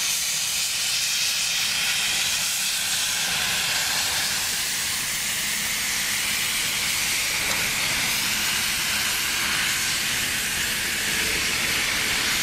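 Standing steam locomotive venting steam low at the front, by the cylinders, with a loud, steady hiss that holds unbroken, without any chuffing.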